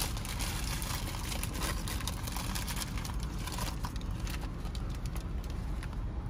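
Paper burger wrapper crinkling and rustling as a Whopper is unwrapped and lifted out by hand, with a low steady rumble underneath.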